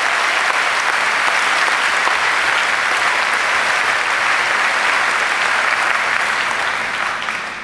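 Audience applauding steadily, the applause dying down near the end.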